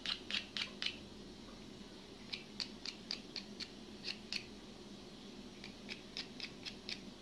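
Short scratchy strokes of a tool working along the edge of a fingerboard's grip tape, trimming off the excess, in quick runs of several strokes with brief pauses between.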